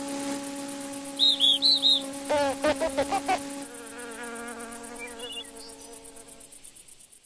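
Cartoon insect sound effects: a steady buzzing wing drone with four short high chirps about a second in, then a loud burst of fast warbling squeaks, followed by wavering calls that fade away near the end.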